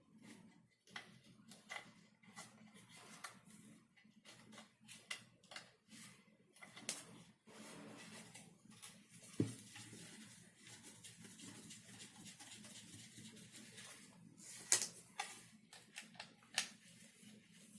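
Plastic parts being handled and fitted together by hand: irregular clicks and light knocks, with one heavier thump about halfway through and a few sharper clicks near the end.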